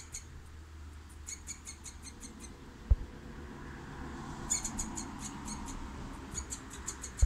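Squirrel calling in bouts of rapid, high-pitched chirps, about seven a second, each bout lasting about a second and recurring every second or two. A single low thump comes about three seconds in.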